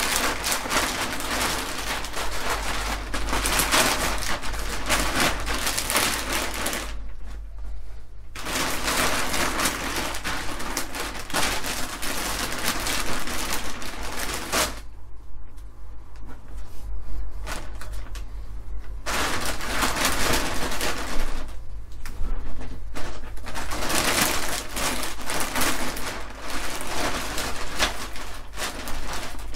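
Heavy-duty clear plastic vacuum storage bag crinkling and crackling as clothes and towels are pushed and pressed down inside it. The crinkling drops away briefly about seven seconds in and again for a few seconds around the middle.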